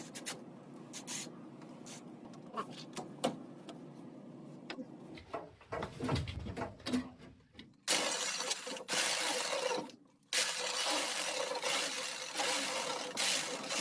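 A plastic drain pipe fitting being worked loose and taken apart. First come scattered clicks and knocks, then about eight seconds in a dense crackling, scraping noise that stops briefly and starts again.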